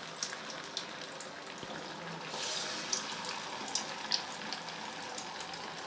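Vadas made from leftover rice and roasted gram deep-frying in hot oil: a steady sizzling hiss with many small crackles and pops.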